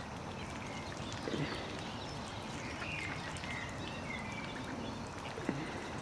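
Ducklings peeping: a run of short, high peeps in the middle, over steady outdoor background noise. There are also two short, lower sounds that fall in pitch, a second in and near the end.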